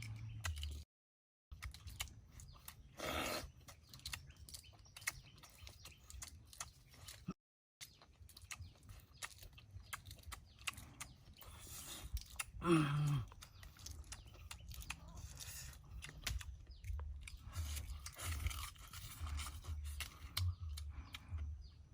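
A person chewing and crunching food close to the microphone, with many short crackling clicks. About thirteen seconds in there is a short, low, falling "mm".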